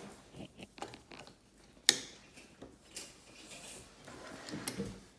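Plastic toy dump truck being handled and worked: scattered plastic clicks and rattles, with one sharp click about two seconds in.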